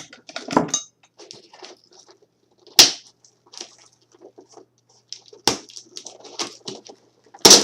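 Packaging being handled while a boxed die-cast model is unpacked: scattered rustles, crinkles and clicks, with two sharp knocks, about three seconds in and near the end.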